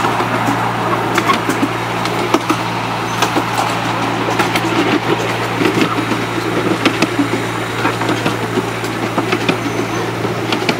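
Miniature railway train running: a steady low drone from the locomotive, with scattered clicks and rattles from the small wheels on the track.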